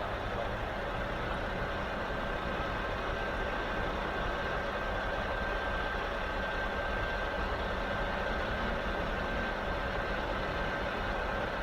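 A diesel truck engine idling steadily, with a thin, high, steady whine held over the low running noise.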